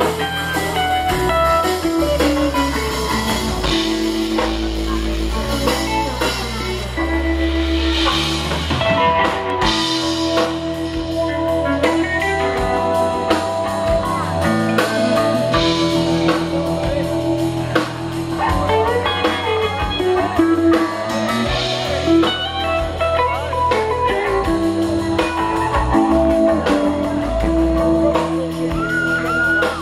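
Live rock band playing an instrumental jam: electric guitar lines over bass guitar and a drum kit, with a low riff repeating about every two seconds.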